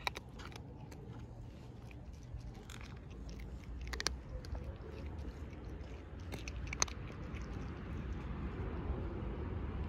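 Gray cat chewing dry kibble, with a few sharp crunches at irregular moments, the loudest about four and seven seconds in, over a low rumble that grows louder near the end.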